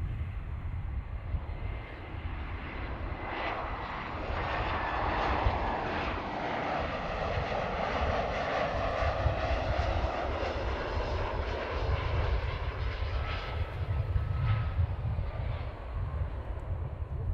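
Jet engines of an Airbus A320 on final approach. The engine noise swells as the airliner flies past and then fades, with a whine that falls in pitch, over a constant low rumble.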